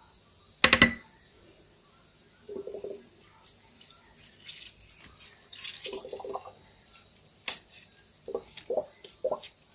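A sharp clatter of dishware about a second in, then scattered wet squelching and rubbing as hands work oil and lemon halves into raw chicken pieces in a metal bowl.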